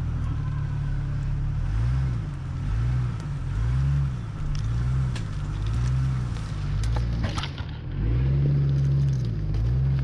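Lifted Jeep Cherokee's engine revving up and dropping back in short pulses about once a second, as in slow off-road driving. A few sharp knocks come about seven seconds in.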